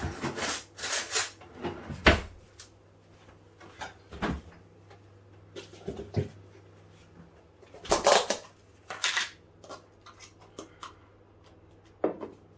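Kitchen handling sounds: a series of short clatters and scrapes of cookware, clustered in the first couple of seconds and again about eight seconds in, over a low steady hum.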